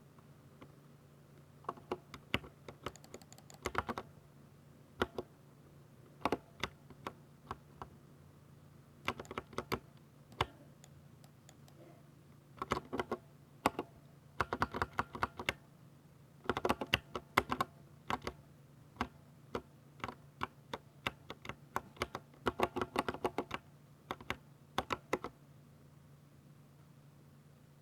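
Typing on a Ducky 60% mechanical keyboard with silver switches: quick flurries of key clicks and clacks in bursts of a second or two, with short pauses between them. The typing stops a couple of seconds before the end.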